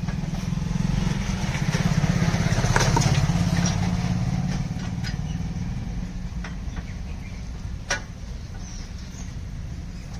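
A small engine running steadily with a fast, even pulse, growing louder over the first few seconds and then slowly fading, with a few sharp clicks over it.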